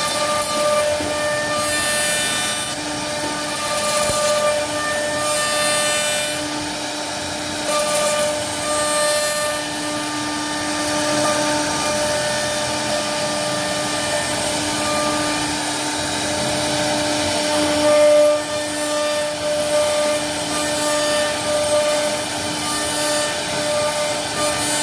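CNC router carving wood: the spindle's steady whine over the rasping noise of the bit cutting, with the cutting hiss swelling and easing as the tool moves.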